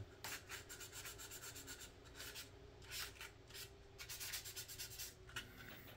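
Faint, quick back-and-forth rubbing of a sanding sponge on a plastic model car body. The body is being lightly scuffed to rough it up before primer.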